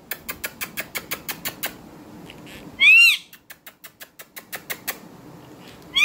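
Indian ringneck parakeet giving one short, loud screech that rises and falls, about three seconds in, with another starting right at the end. Between them come runs of rapid light clicks, about eight a second.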